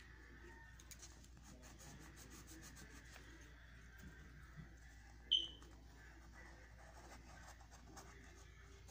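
Faint scratching and rubbing of a Dixon Ticonderoga graphite pencil drawing on lined notebook paper, in many small strokes. About five seconds in there is one short, sharp high chirp.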